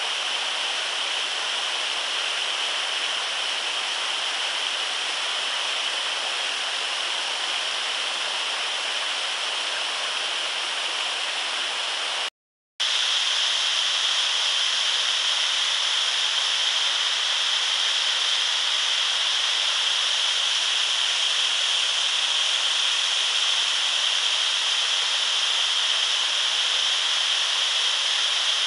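Mountain torrent rushing steadily, a dense even hiss of running water. The sound cuts out completely for a split second about twelve seconds in, then comes back slightly louder.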